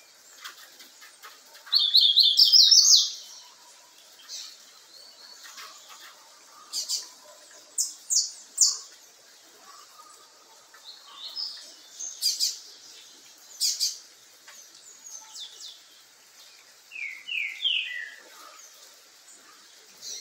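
Young brown-plumaged double-collared seedeater (coleiro) calling: a fast run of rising high notes about two seconds in, then scattered short high chirps, with a few lower notes near the end.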